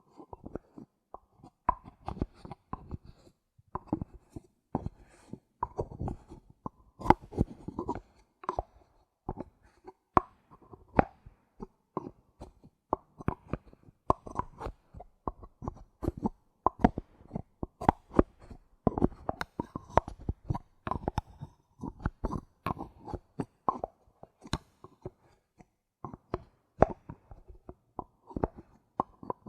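Bottle caps being handled: rapid, irregular clicks and taps that come in quick clusters.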